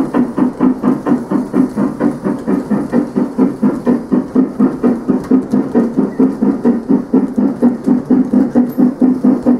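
Gauge 1 Märklin model freight train running past, with an even beat of about five pulses a second over a steady hum.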